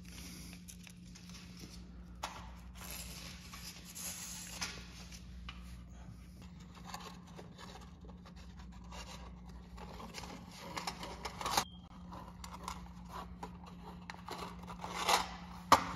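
Hands threading a string through the hole in an aluminum mini blind's bottom rail: light scraping, rustling and small clicks of cord and fingers against the rail, with a few louder scrapes in the second half.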